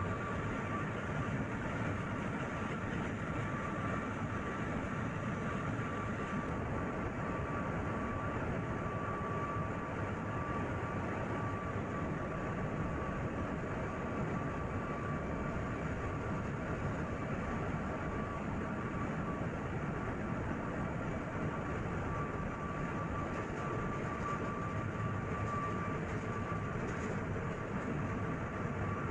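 Steady din of a container ship's engine room: large marine diesel machinery running at constant speed, a dense rumble with a steady high whine on top.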